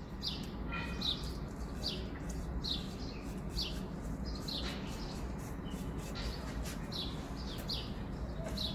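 A bird chirping over and over, short falling chirps a little more than one a second, over a steady low background hum.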